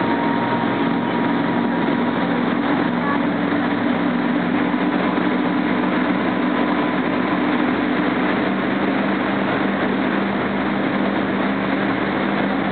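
Motorboat engine running steadily at speed, with the rush of churning wake water and wind over it.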